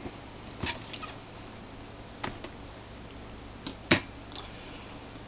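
A laptop hard drive in its metal case being handled after removal, giving a few light clicks and knocks, the loudest about four seconds in, over a steady low hum.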